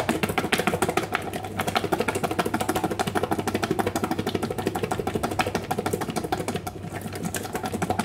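Ceramic plate worked rapidly back and forth against another dish to beat a mixture between them: a fast, even rattle of china on china, about ten strokes a second.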